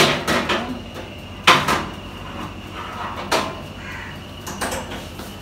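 Metal baking tray clanking and scraping against the rack and door of a countertop electric oven as it is handled with an oven mitt. The loudest knock comes about a second and a half in, another follows about three seconds in, and there are smaller knocks near the end.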